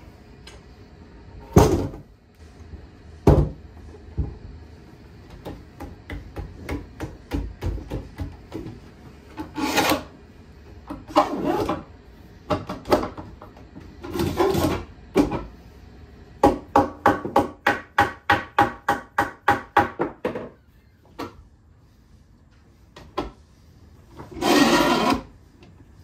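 Thick solid birch boards knocked down onto metal bar clamps and slid and rubbed against each other during a panel glue-up: two sharp knocks near the start, several rough scraping rubs, and in the middle a quick even run of clicks, about four a second.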